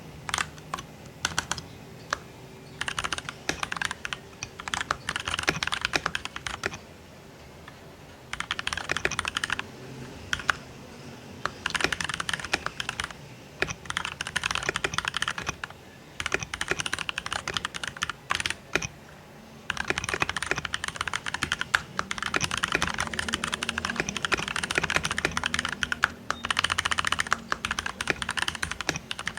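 Typing on a Keychron mechanical keyboard: rapid runs of key clicks lasting several seconds each, broken by short pauses with a few single keystrokes.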